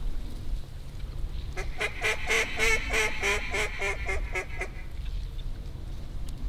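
A run of about ten evenly spaced mallard quacks, roughly three a second, starting about one and a half seconds in and stopping near five seconds.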